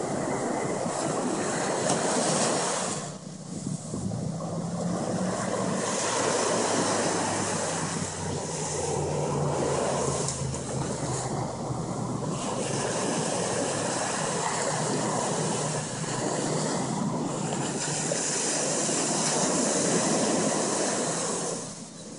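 Ocean surf breaking and washing up the sand in repeated surges, with wind on the microphone.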